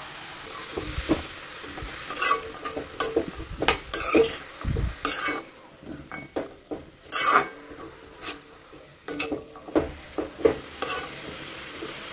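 A metal spoon stirring and turning leafy greens and peas frying in a metal kadai: irregular scrapes and clinks against the pan over a light sizzle.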